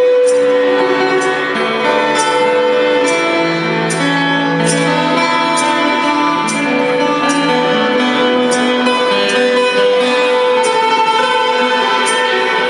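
Self-built double-necked, many-stringed lute plucked in a melody over a held drone note, with a light regular tick a little more often than once a second.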